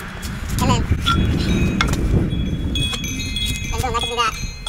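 Wind chime ringing: several clear metal tones start one after another from about halfway through and hang on, overlapping. A low rumble fills the first half.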